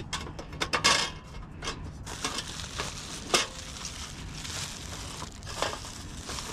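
Crinkling and crackling of plastic bubble-wrap packaging being handled, with scattered clicks and knocks as a portable gas camping stove is shifted on rock. One sharp click about three and a half seconds in.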